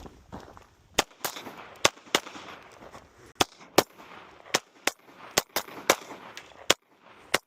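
Pistol shots fired through a timed course of fire at an action pistol match: about a dozen sharp reports, mostly in quick pairs with short pauses between groups.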